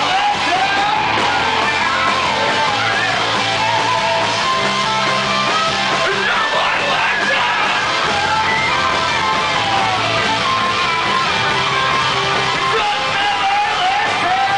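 Live heavy rock band playing loud and without a break: distorted electric guitars, with sung and yelled vocals over them.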